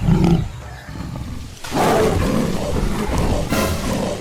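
Tiger growling and roaring: a short growl at the start, then a longer, rough roar from about a second and a half in.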